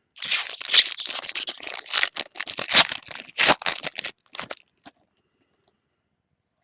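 A trading-card pack's foil wrapper being torn open and crinkled, with a rapid run of crackles that stops about four and a half seconds in.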